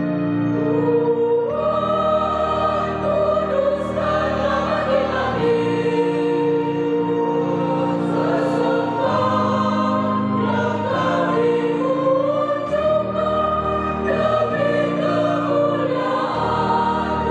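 Church choir singing a hymn together, voices moving through the melody over steady low notes held for a few seconds at a time.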